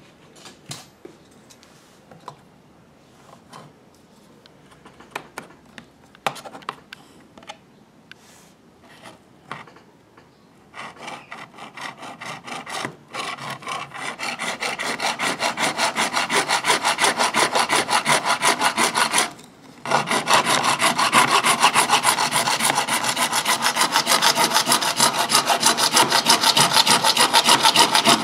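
Hand hacksaw cutting through a white PVC plastic pipe clamped in a vise. Scattered light clicks for about the first ten seconds, then steady, rapid back-and-forth sawing strokes. There is a brief pause a little past the middle.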